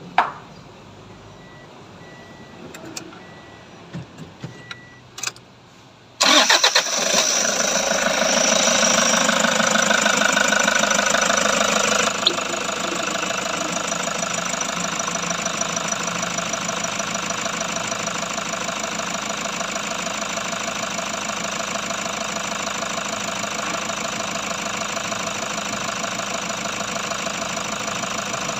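Toyota Hi-Ace engine cranking and catching about six seconds in, then running at a raised idle that drops to a steady idle about six seconds later. A few light clicks come before it starts.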